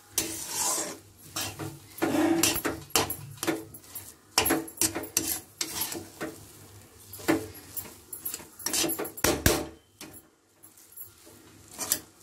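Metal ladle scraping and knocking against a heavy-bottomed kadai while stirring and tossing cooked vermicelli upma, in irregular strokes, with a short pause about ten seconds in.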